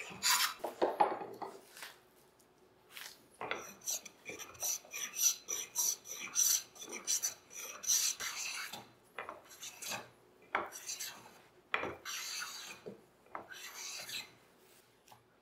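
A hand-held woodworking tool scraping and shaving across the edge of a walnut stool seat in short, irregular strokes, a couple a second. There is a brief pause about two seconds in, and the strokes stop shortly before the end.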